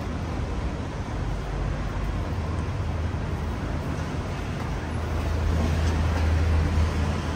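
Busy city street traffic: a steady wash of road noise with a low engine rumble that grows louder about five seconds in.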